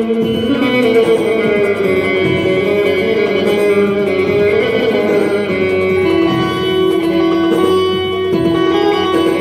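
Instrumental music with no singing, led by a plucked string instrument playing a melody.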